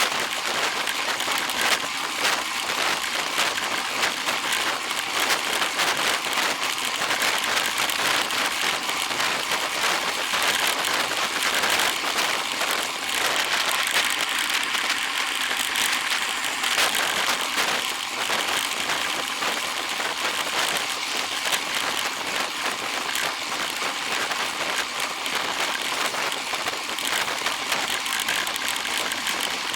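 A steady, dense crackling patter of many fine clicks, unbroken and at an even level.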